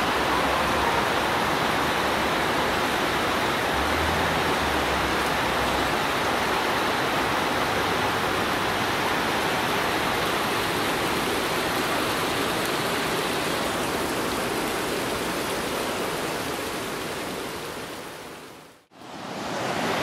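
Mountain river rushing over rapids in a rocky gorge: a steady, full rush of white water that fades out near the end.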